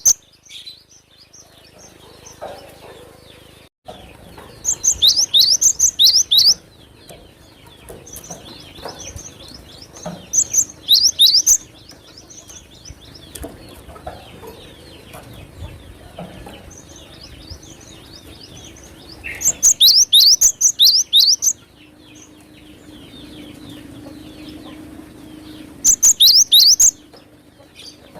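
Cinereous tit (glatik batu) singing in loud bursts of rapid, high, repeated notes, four bursts a few seconds apart, with faint twittering between them.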